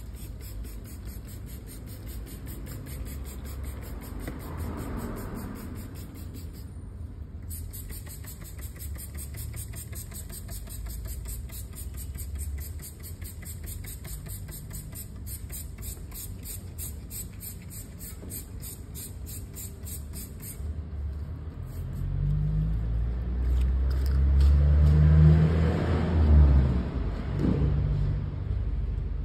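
Low engine rumble of a motor vehicle, steady at first, then swelling much louder from about three-quarters of the way through before easing off near the end.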